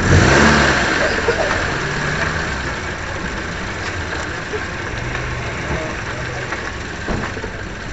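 Suzuki Swift cup race car's four-cylinder engine idling at low speed. It is loudest in the first second, then settles to a steady idle.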